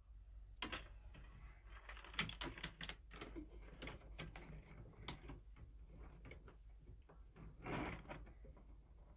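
Small nuts and bolts and wire being handled and tied on by hand: faint, irregular small clicks and rattles, with a brief louder rustle near the end.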